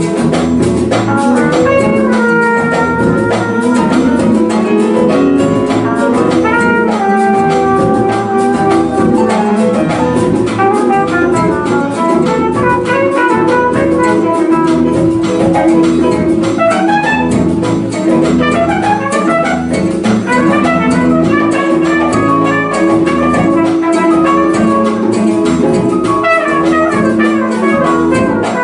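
A live jazz band playing: trumpet and saxophone lines over piano, guitar and congas, with held notes and quick runs of notes.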